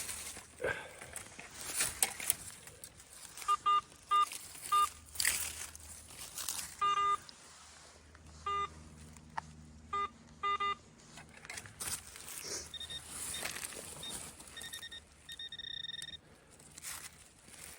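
Metal detector sounding short beeping target tones, several in quick runs through the middle and a higher-pitched tone near the end, amid scraping and crunching of digging in soil.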